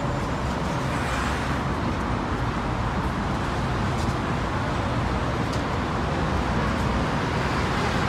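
Steady road traffic noise from cars passing on a busy city road, with a few faint clicks.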